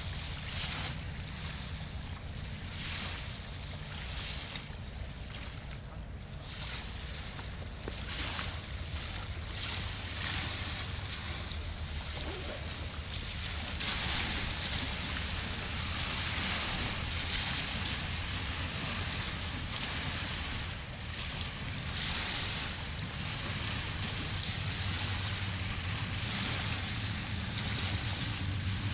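Wind on the microphone and the wash of river water, over a steady low engine hum from a ship on the river.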